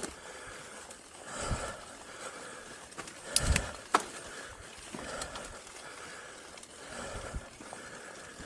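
A mountain biker breathing heavily while riding a forest trail, a breath every second or two, over the rumble and rattle of the bike on the ground, with a few sharp clicks and knocks a little past three seconds in.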